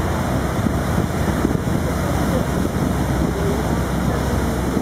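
Steady rush of wind on the microphone mixed with the churning wash of a river cruise ship's stern wake.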